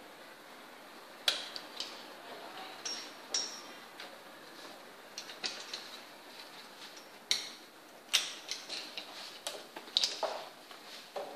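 Irregular small clicks and taps of hairdressing tools such as a comb and clips being handled at a mannequin head, with a few louder knocks.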